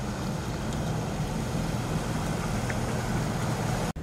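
A motor vehicle's engine idling steadily with a low, even hum; the sound drops out for an instant near the end.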